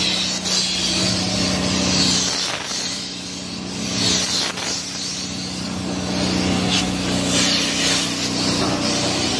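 Compressed-air paint spray gun hissing in repeated bursts as the finishing coat is sprayed onto a truck body, over a steady low hum.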